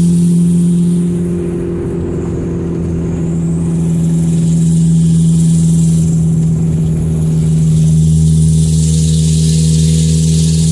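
Loud engine and exhaust drone of a 1997 Audi A4's turbocharged four-cylinder, running through a 2.5-inch dump pipe with no catalytic converter and a broken exhaust flex joint, heard from inside the cabin while driving. It eases off about two seconds in and comes back up from about five seconds.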